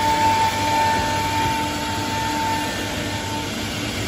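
CNC router spindle cutting grooves into plywood: a steady high whine over a constant rushing noise, the whine fading about three and a half seconds in.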